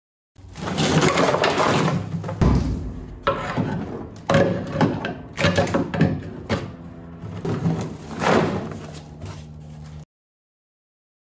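A series of knocks and thumps as a cardboard box of dry ice is pressed and shifted against the bare steel wall of a car's floor pan.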